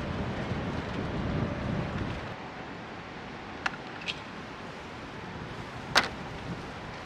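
Camping gear being handled during tarp setup: a low rumble for the first two seconds, then a few light clicks and one sharp knock about six seconds in.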